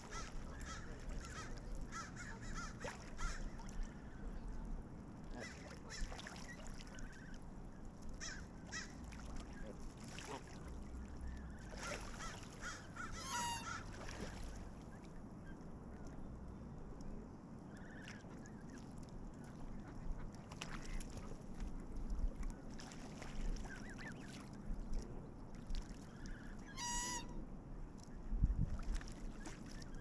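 Canada geese honking and calling on and by the water, in scattered short honks, with two louder, drawn-out calls about a third and nine-tenths of the way through.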